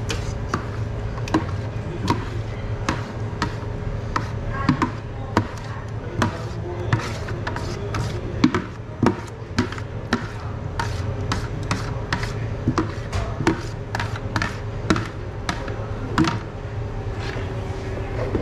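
Pizza-kitchen work: a running series of sharp knocks and taps from tools and hands on a work surface, about one or two a second, over a steady low hum.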